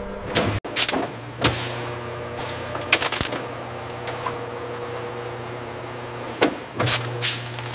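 Factory machinery running with a steady hum, with sharp clanks and clicks at irregular intervals.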